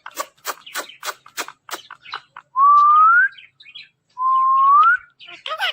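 Ringneck parrot making a run of quick clicks, then two clear whistles, each a held note that rises at its end, with a short harsh call near the end.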